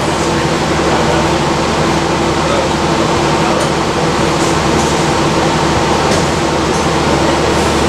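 Steady hum and rush inside a standing motor coach's cabin: the engine idling and the air-conditioning blowing, with no change in level.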